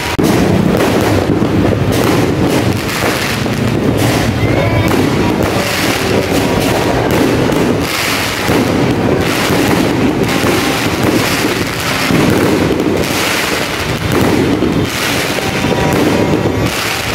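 Fireworks crackling and banging without a break: a dense, continuous run of cracks and pops that stays loud throughout.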